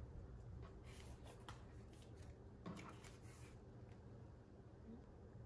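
Near silence with faint rustling and a few soft clicks of thin vinyl balloon film being handled.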